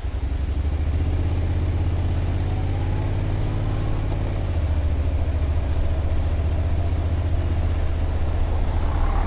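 Honda NC750S motorcycle's parallel-twin engine running under way over a steady rushing noise. The engine note rises about two to four seconds in and shifts near four and a half seconds, then rises again near the end.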